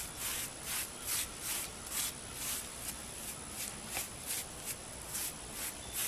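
Repeated short brushing or dabbing strokes over the rough hypertufa birdhouse, about two a second in an even rhythm, as the surface is worked over by hand.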